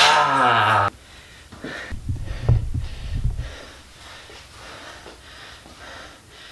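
A man's loud strained groan during a heavy barbell squat, falling in pitch over about a second, followed by low thuds and then heavy panting breaths.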